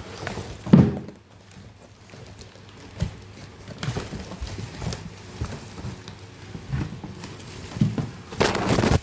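Household objects being handled and set down: a few thuds and knocks, the loudest just under a second in, then a burst of rustling or scraping near the end.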